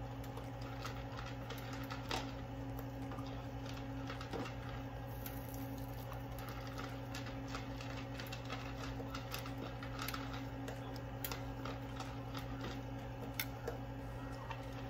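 Glaze being brushed onto chicken kabobs on a wire rack: faint, scattered light taps and clicks of the brush and skewers against the rack, over a steady low hum.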